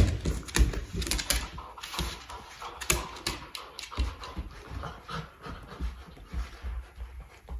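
Yellow Labrador retriever puppy playing tug with a rubber toy: panting and scuffling, with irregular clicks and knocks throughout.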